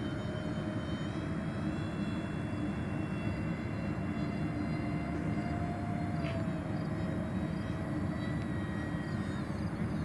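Electric ducted fans of a radio-controlled Airbus A330 model airliner flying overhead: a steady whine over a low rushing noise, its pitch dipping slightly about six seconds in.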